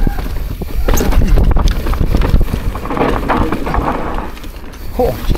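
Wind rushing over the microphone while a downhill mountain bike rattles and knocks over rough trail at speed, with a steady low rumble and many short clanks and thuds.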